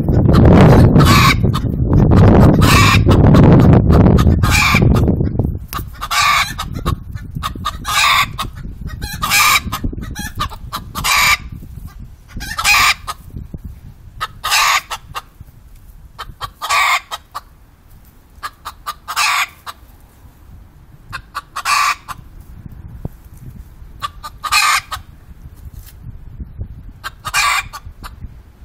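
Bantam chickens calling: short loud calls repeated about once a second, spacing out to every two or three seconds after about twelve seconds. A loud low rumble sits under the calls for the first five seconds or so.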